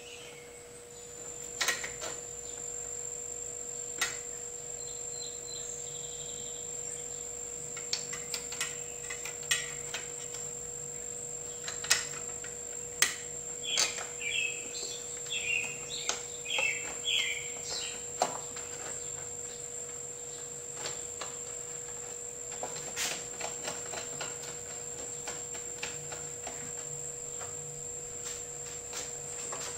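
Scattered light clicks and taps of small metal engine parts being handled and fitted back onto a Lawn-Boy mower engine, over a steady hum and a faint high whine. A few short chirps come and go around the middle.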